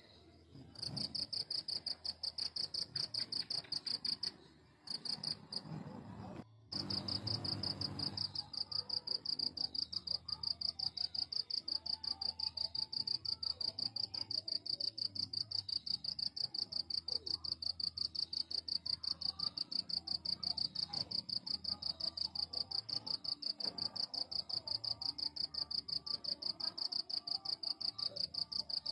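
A cricket chirping in a high, shrill trill of rapid even pulses; it starts about a second in, breaks off briefly twice in the first seven seconds, then carries on steadily.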